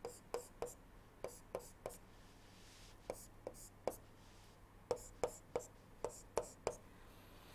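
A stylus tapping on a tablet screen during handwriting: a run of faint, sharp taps in groups of about three.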